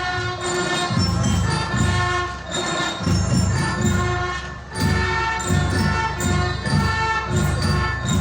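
Music: a band plays a melody in distinct notes over a steady drum beat of about two beats a second, with a bright bell-like ring.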